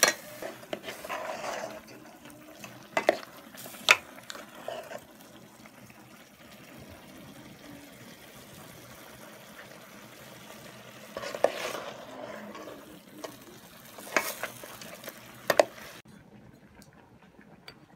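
A metal ladle stirring stew in a metal cooking pot, scraping through the food and clinking sharply against the pot's side about half a dozen times.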